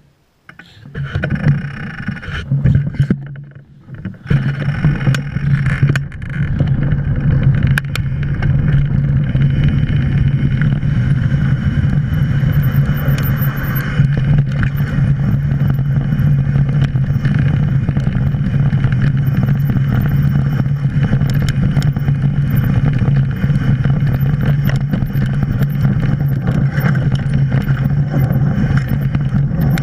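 Mountain bike rolling fast down a dirt and gravel trail: a steady low hum and rumble from the knobby tyres and coasting rear hub, with small clicks and rattles over rocks and wind on the camera microphone. It starts off broken and quieter for the first few seconds, then runs steadily once the bike is up to speed.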